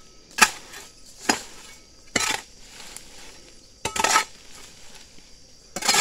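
A series of sharp metallic clinks, about five of them roughly a second apart, two of them longer and scraping, from a hand tool knocking against metal or stone.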